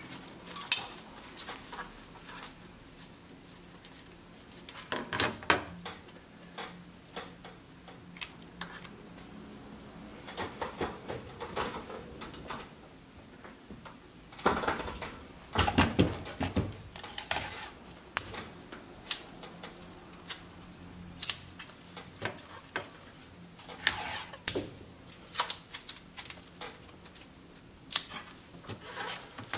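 Kapton tape being pulled off the roll and pressed down onto a PS4 Slim motherboard: irregular clicks and taps with short crackling bursts, the longest about halfway through.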